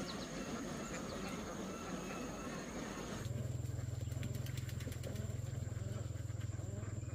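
A large flock of white domestic ducks calling all at once in a dense, overlapping chorus. About three seconds in, a steady low hum joins and becomes the loudest sound.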